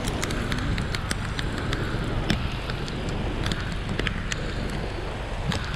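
Heavy rain: a steady hiss and low rumble with many irregular sharp ticks of raindrops striking close by.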